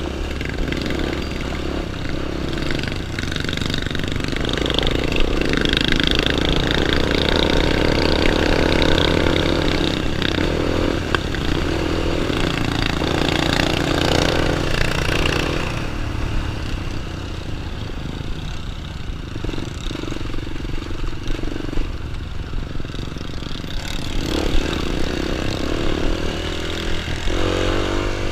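A child's small dirt bike engine running, its pitch going up and down with the throttle. It is louder and busier through the first half, eases back to a lower, quieter run, and picks up again near the end.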